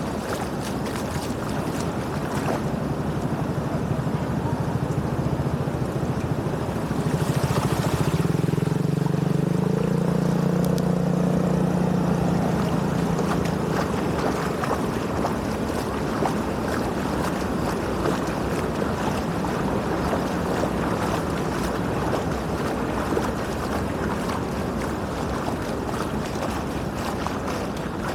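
Water rushing steadily through a drainage outlet. From about seven seconds in, a motor hum rises over it for several seconds and then fades away.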